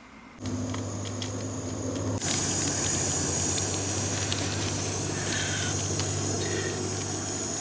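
Jetboil gas stove burner running, a steady hissing roar with a low hum, growing louder and brighter about two seconds in as it heats the pot.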